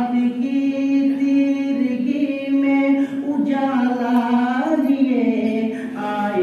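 A man singing an Urdu naat unaccompanied into a microphone, drawing out long held notes that slowly bend in pitch.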